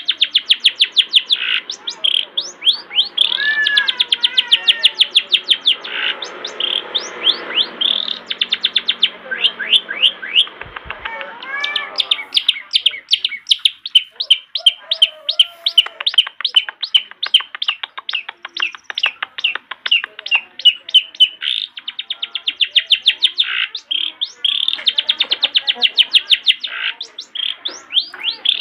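Long-tailed shrike singing vigorously: long runs of sharp, rapidly repeated high notes, broken now and then by varied warbling phrases.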